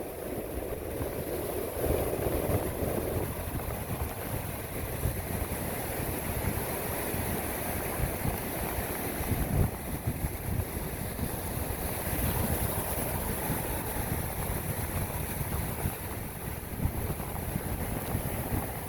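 Wind buffeting the microphone in an irregular low rumble, over the steady wash of ocean surf.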